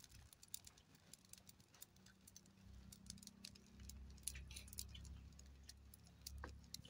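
Near silence with faint, scattered crackles and ticks from the wood fire burning under an iron tawa, and a faint low rumble from about three seconds in.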